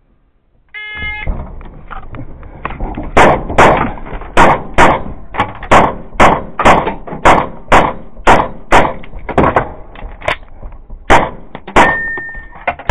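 A shot timer beeps once, and about two seconds later a semi-automatic pistol fires a long string of loud shots in quick succession, many of them in close pairs. The shots are fired from inside a car's cabin out through the open side window.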